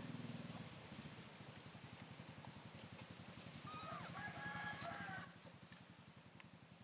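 A kitten purring steadily, with a bird calling for about two seconds in the middle: a quick run of high falling chirps over a lower call.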